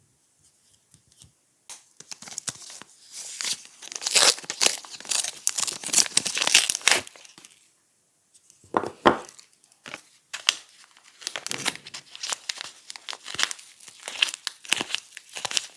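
Soap packaging being torn open and crumpled by hand: dense crinkling and tearing, with a short lull a little past halfway and a loud rip about nine seconds in.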